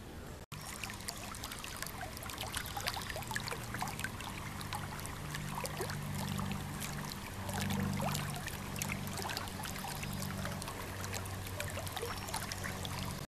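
Shallow river water rippling and gurgling around a partly submerged rock, with many small bubbling splashes over a low steady hum.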